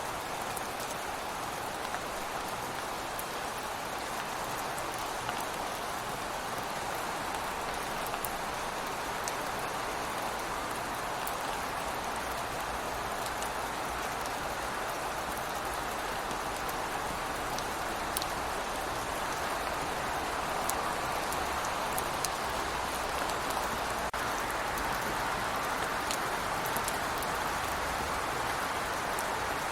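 Steady rain falling outside a window, a constant hiss with scattered drips and drop ticks.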